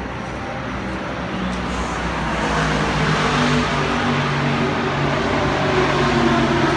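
A car engine running nearby, getting louder about two seconds in and then holding a steady low hum over a rushing noise.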